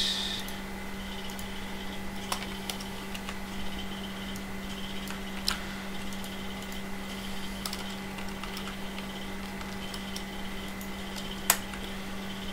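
Scattered clicks of a computer keyboard and mouse over a steady low hum, with one louder click near the end.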